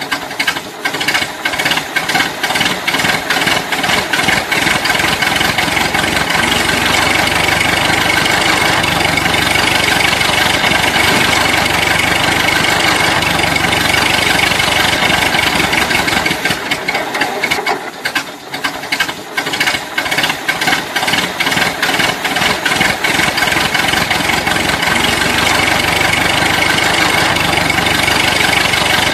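Tractor diesel engine sound, running with a knocking chug. It pulses unevenly for the first few seconds and again about 18 s in, and is otherwise steady.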